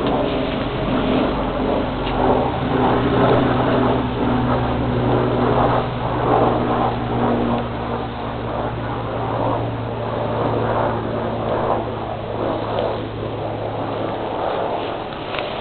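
A steady low hum of a running engine or motor, under a rushing noise that rises and falls.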